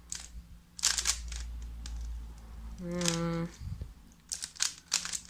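ShengShou magnetic 3x3 puzzle cube being turned by hand, its plastic layers clicking: a few turns about a second in, then a rapid run of quick turns from about four seconds in.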